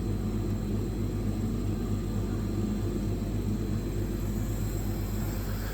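Refrigerated air dryer of a screw-compressor unit running with a steady, even hum while it pre-cools the air, before the screw compressor itself has started.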